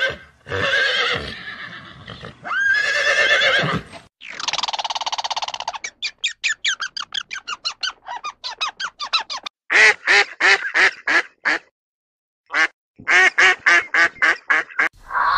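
Animal calls: a horse whinnies twice with a long wavering cry, then a buzzing call follows, then runs of short repeated calls, about three a second, with a brief pause in the last third.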